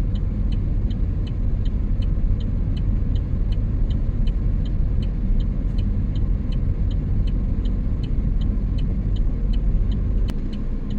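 Inside a small car's cabin on the move: a steady low rumble of engine and road, with the turn-signal indicator ticking evenly about three times a second. One sharper click sounds near the end.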